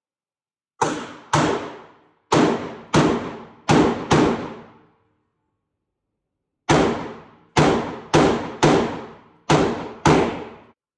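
Gunshots at a shooting range: twelve shots in two strings of six, with a pause of about two seconds between the strings. Each shot is sharp and fades quickly.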